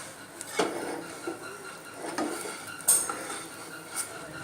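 Utensils knocking and clinking against a pan in a few separate light strikes, the loudest about three seconds in.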